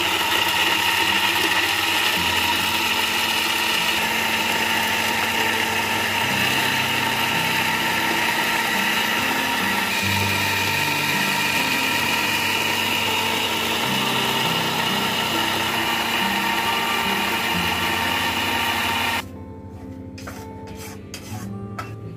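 Small electric blender motor running steadily at high speed, a loud continuous whir with a steady whine, grinding red chili into a spice paste. It cuts off suddenly about nineteen seconds in, leaving background guitar music.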